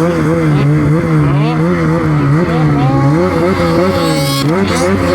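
Snowmobile engine revving up and down over and over, its pitch rising and falling about once a second, as the rider tries to work the sled free while it is stuck.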